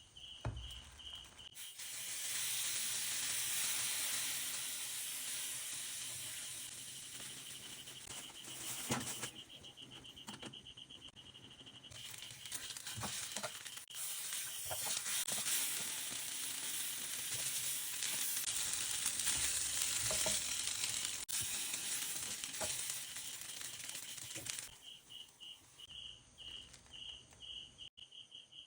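Food frying in hot oil in a pan, a steady loud sizzle that builds in over the first couple of seconds, eases off for a few seconds in the middle, then stops about 25 seconds in. Crickets chirp in a fast pulsing rhythm behind it and are left alone at the end.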